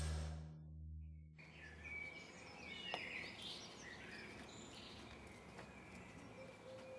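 A low held musical drone fades out within the first second and a half, giving way to soft outdoor background noise with small birds chirping and twittering throughout, and a single faint click about three seconds in.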